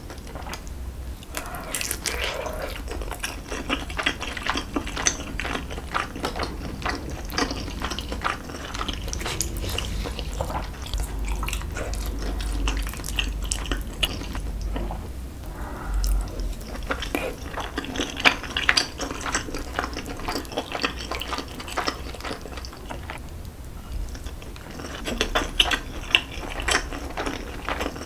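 Close-miked eating sounds: chewing and wet mouth smacks on soft tteokgalbi and fried egg, with metal chopsticks clicking against a ceramic plate. Many small clicks follow one after another, with louder clusters past the middle and near the end.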